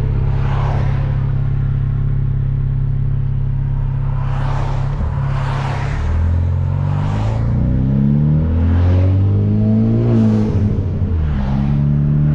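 Hyundai Veloster Turbo's turbocharged 1.6-litre four-cylinder with a catless downpipe, heard from inside with the windows down: a steady cruise, then the engine note climbing under acceleration with a shift partway, dropping back near the end. Repeated short whooshes come and go over the engine.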